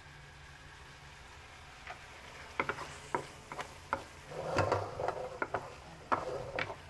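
Wooden spatula stirring onions and tomatoes frying in a non-stick wok, with quick clicks and scrapes against the pan over a light sizzle. The stirring starts about two seconds in and is busiest near the middle.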